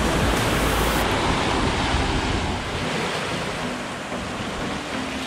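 Surf washing onto a beach at night, with wind rumbling on the microphone.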